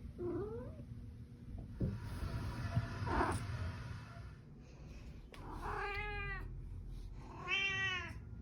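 Domestic cat meowing in short calls each time it is touched. There is a brief rising call at the start, a noisy rustle with a short call in the middle, and two clear, arching meows in the second half.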